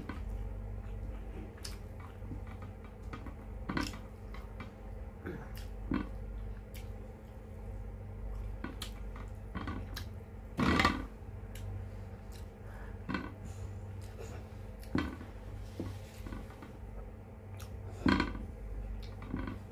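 A person eating close to the microphone: chewing and wet mouth sounds, with a handful of short clicks or clinks scattered through, the loudest about eleven seconds in. A steady low hum runs underneath.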